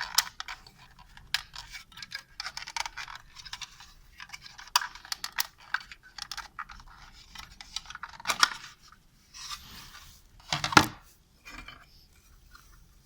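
Parts of an LCD monitor's stand being handled and worked apart by hand: irregular clicks, scrapes and small rattles, with one louder knock late on.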